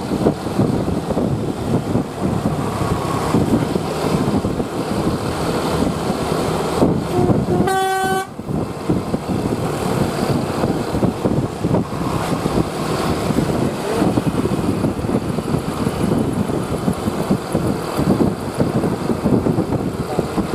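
Steady, dense rumble of a large vehicle on the road. About seven seconds in, a bus's melodic 'basuri' telolet horn gives one short toot, stepping from a lower note up to a higher one.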